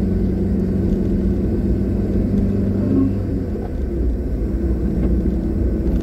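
Car engine and road rumble heard from a moving car, steady and low, with the engine note shifting about halfway through.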